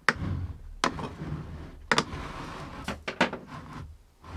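A plastic tub of vinegar with a saw blade in it being shifted about on a wooden workbench: several sharp knocks roughly a second apart with rough scraping between them.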